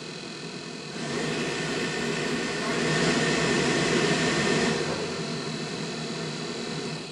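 VW Polo 86c cabin heater blower fan running, getting louder in two steps and then dying away near the end. It no longer squeals, but the owner finds it vibrates a little because the fan cage runs slightly out of true.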